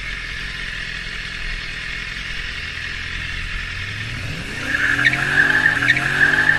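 A car's tyres squealing as it slides sideways through a bend, starting about four and a half seconds in, with its engine revving up at the same time. Before that there is a steady drone of engine and wind noise.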